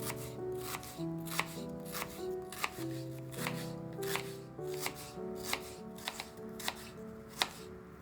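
Knife chopping on a cutting board: sharp, uneven strikes about twice a second, over background music.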